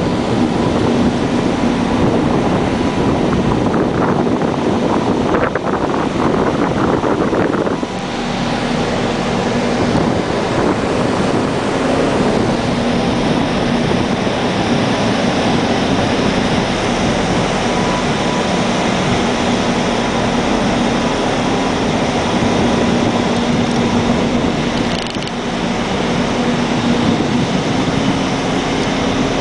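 Steady drone of ship's machinery with wind rushing over the microphone. Wind noise is heavy for the first several seconds, after which a steady low hum comes through more clearly.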